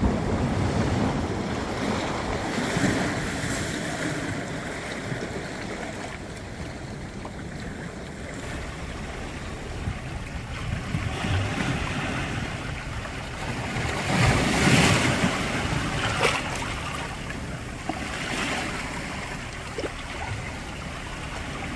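Sea waves surging over shore rocks and washing back, coming in repeated swells every few seconds, the biggest about two-thirds of the way through.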